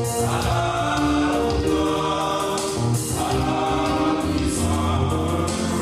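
Male vocal ensemble singing a gospel song in harmony, several voices holding long notes together.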